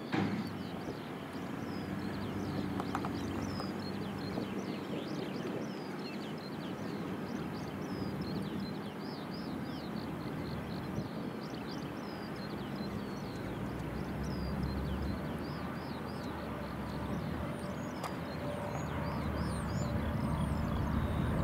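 Small birds chirping over and over above a steady distant rumble of a Boeing 787's jet engines. The rumble grows louder near the end as the airliner draws nearer.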